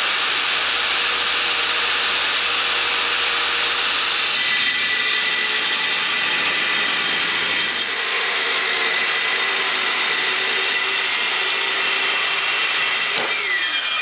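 Angle grinder with a cutoff wheel cutting through a steel sheet: a steady, loud, hissing grind that runs without a break. Near the end the grinder is let off and its pitch falls as the wheel winds down.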